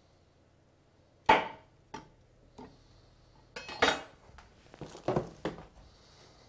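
Kitchen knife and utensils knocking and clattering on a wooden chopping board while an avocado is cut. A sharp knock a little over a second in is the loudest, followed by a few smaller knocks and two brief runs of clatter.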